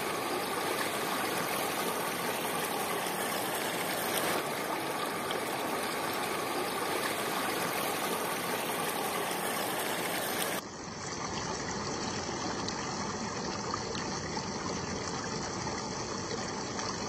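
Steady rushing of river water flowing over a rocky bed. About two-thirds of the way through it changes abruptly to a slightly quieter, duller rush.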